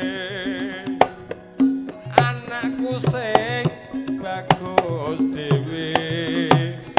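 Javanese gamelan (karawitan) music: sharp kendang hand-drum strokes over steady pitched gamelan notes, with a wavering, sliding melody line on top.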